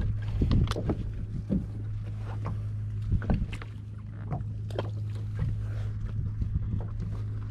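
Scattered clicks and knocks of a baitcasting reel and rod being handled, over a steady low hum.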